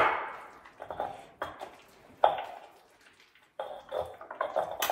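Guacamole being stirred in a black stone molcajete: a utensil knocks and scrapes against the bowl in a string of irregular, sharp clicks, with a short pause about three seconds in.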